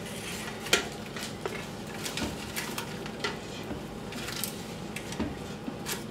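A spoon stirring inside a stainless steel stockpot, clinking and scraping against the metal at irregular moments, a few times a second.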